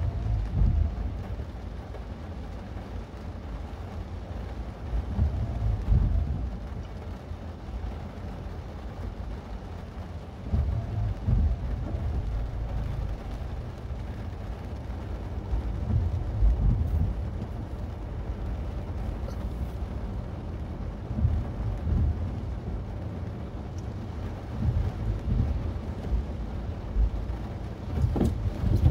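Low road and engine rumble inside a moving Mazda 3, a steady drone that swells louder every few seconds.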